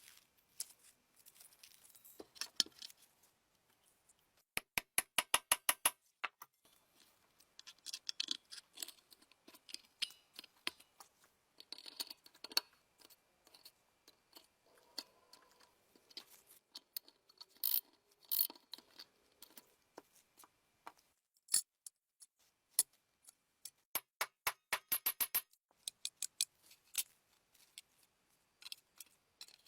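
Sharp clicks and taps, some in quick even runs of about ten a second and others scattered singly: small tools and parts being handled during restoration work.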